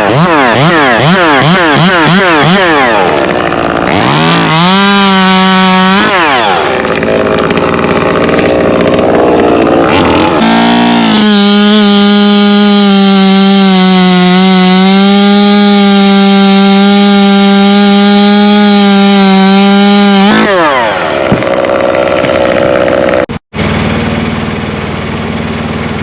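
Two-stroke chainsaw revved in quick bursts, then held at full throttle for about nine seconds before dropping back. The sound breaks off abruptly near the end, leaving a lower, quieter running sound.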